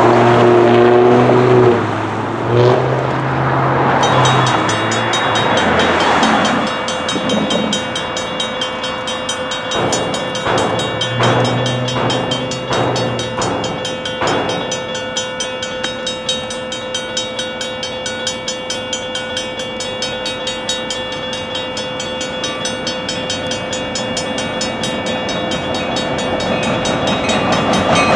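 A Safetran Type 1 electronic crossing bell starts ringing about four seconds in as the crossing activates, a rapid, steadily repeating ding. Near the end it is joined by the rising rumble of the approaching train. In the first few seconds a low droning sound with several pitches is heard before the bell starts.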